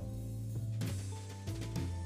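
Instrumental background music: sustained notes over a steady bass, with a couple of percussive hits.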